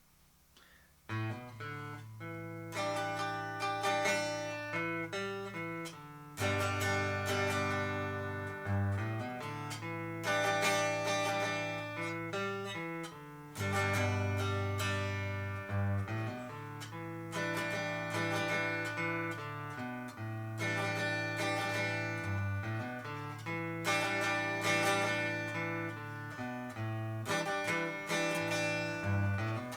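Squier 40th Anniversary Telecaster on its neck pickup, played straight into a Sound City Master Lead 50 amp and Schroeder 12PL cabinet with no effects or reverb. A picked passage of low bass notes under chords, repeating its phrase, begins about a second in.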